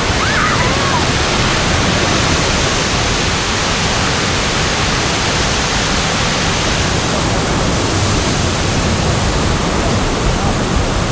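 Russell Falls waterfall: water pouring down in a loud, steady rush.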